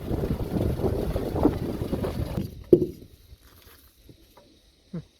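Small boat noise with wind on the microphone that stops abruptly about halfway through, followed by a single loud thump and a couple of faint knocks.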